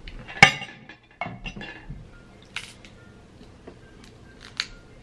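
Snow crab leg shells being cracked open by hand: a loud, sharp crack about half a second in, then a run of smaller shell cracks and clicks, and another sharp crack near the end.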